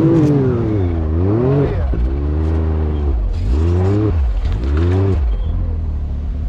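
Side-by-side UTV engine revving up and down in a series of throttle swells, about four in a row.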